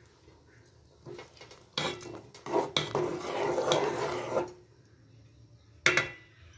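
A metal spoon scraping and clinking against a cooking pot as rice is stirred into boiling water, for about three seconds, followed about six seconds in by one sharp metallic clank.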